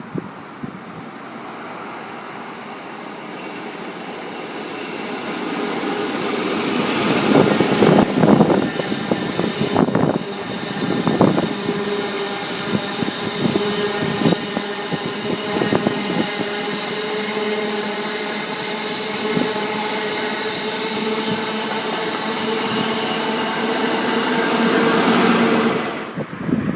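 A train passing close by, growing louder over several seconds, with clattering wheels at its loudest and then a steady mechanical hum, the sound cutting off suddenly near the end.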